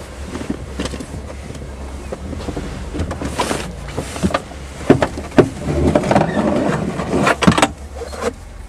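Handling noise: jacket fabric rustling and rubbing right against the microphone, with a few sharp knocks and clacks as a long pole is handled, the loudest about two thirds of the way through, over a steady low rumble.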